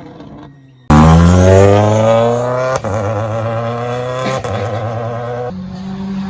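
A Toyota Yaris WRC rally car's 1.6-litre turbocharged four-cylinder engine. A loud note cuts in suddenly about a second in and rises in pitch under hard acceleration, with quick upshifts about two and three and a half seconds in. It settles to a steadier, lower note near the end.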